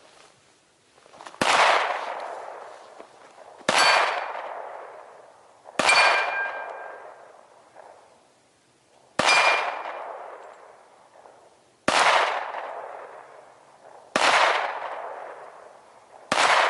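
Seven .45 ACP shots from a 1911 pistol, spaced about two to three seconds apart, each followed by a long fading echo. After several of the shots a steel target rings with a clear metallic tone as it is hit.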